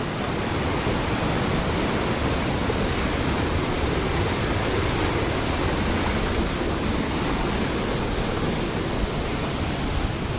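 Steady rush of a mountain waterfall cascading over rocks.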